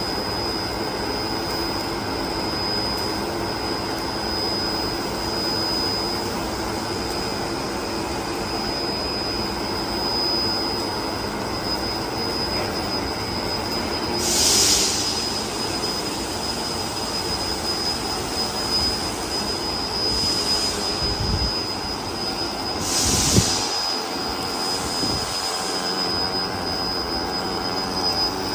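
Steady industrial welding noise: a continuous hiss and hum with a constant high whine. Two short, louder bursts of hiss come about halfway through and again about two-thirds of the way in.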